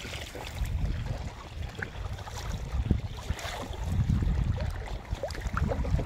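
River water sloshing and splashing as a fishing net is hauled up over the side of a wooden boat, with wind buffeting the microphone. A few short knocks sound against the hull.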